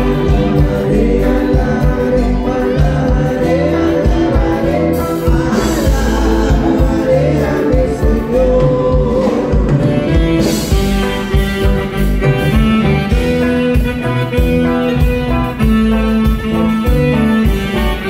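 A live band playing loud amplified music through the PA, with drums and bass under a wavering lead melody that fades about halfway through.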